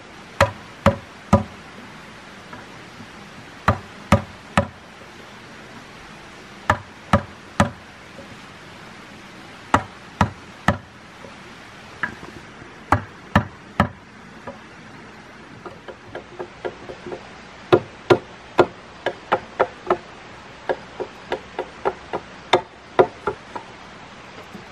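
A tool striking wood: sharp blows in groups of three, about two a second, with a pause of a second or two between groups. From about fifteen seconds in, the strikes turn into quicker, lighter taps.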